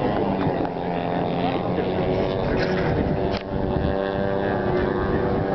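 Aircraft flying overhead: a steady engine drone whose pitch slowly slides.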